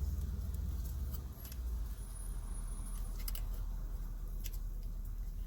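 A few small, sharp clicks and taps as an LED bulb is fitted into the dome light's socket, over a low steady rumble.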